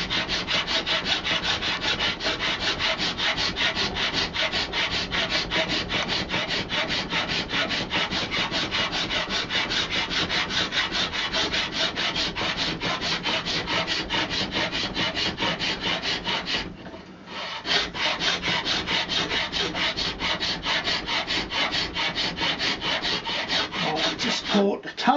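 A flat hand file rasping back and forth across a buffalo horn walking-stick handle clamped in a vice, in rapid, even strokes with a brief pause about two-thirds of the way through. It is taking horn off the middle of one face to bring it flat and level.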